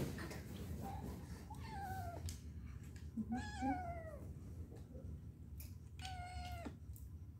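Kitten meowing: three drawn-out meows about two seconds apart, the first falling in pitch and the second wavering, with a short faint mew before them.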